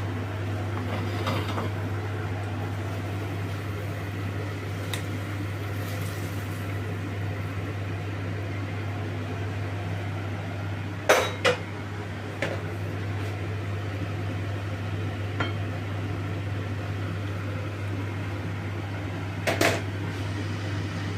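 Kitchenware clinking and knocking a few times, with sharp knocks about halfway through and near the end, over a steady low hum from a kitchen appliance.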